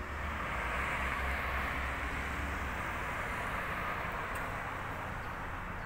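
Road traffic noise: a vehicle passing on the road, its tyre and engine noise loudest in the first couple of seconds with a low rumble, then slowly fading.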